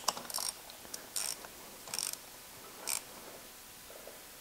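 Socket ratchet clicking in four short bursts less than a second apart, the pawl ratcheting on each back-swing while a new spark plug is tightened down from finger tight.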